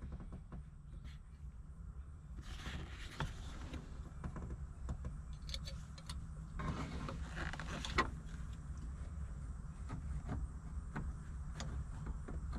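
Handling noises: scattered light clicks and two longer rustles, the second ending in a sharp click about 8 seconds in, over a steady low hum.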